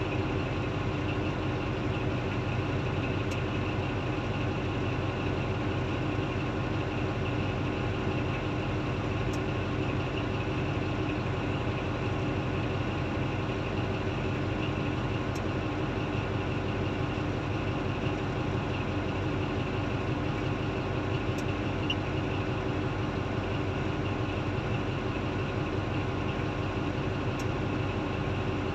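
Heavy diesel engines of a Komatsu D155A crawler bulldozer and a large Komatsu mining excavator, running steadily as the dozer pushes soil, with no revving or pauses.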